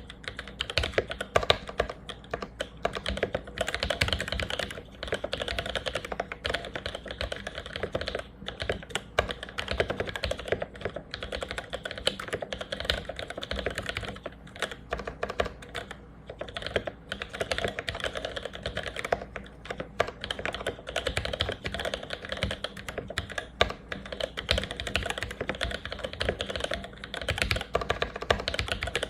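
Continuous fast typing on a mechanical keyboard with vintage Cherry MX Black linear switches, lubed with Krytox 1514 and fitted with 63.5 g springs: a dense run of keystroke clacks with brief pauses.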